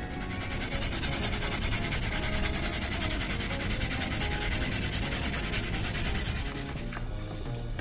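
A steady rasping, rubbing noise that starts suddenly and fades out about seven seconds in, over background music.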